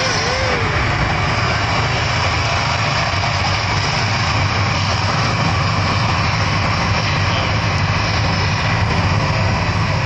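The Las Vegas Strip volcano attraction erupting: a loud, steady roar with a deep rumble underneath.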